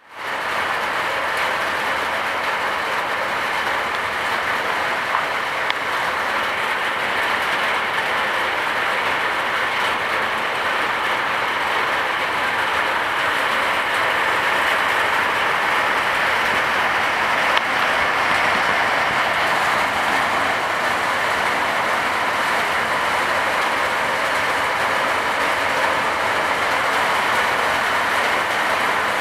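Heavy downpour on the corrugated sheet-metal roof of a field's bench shelter: a steady, dense hiss of rain with no let-up.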